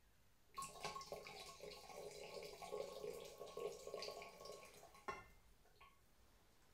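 Water trickling from a bamboo ladle (hishaku) into the mouth of a cast-iron tea kettle (kama), a faint steady pour of about four and a half seconds that ends with a sharp click.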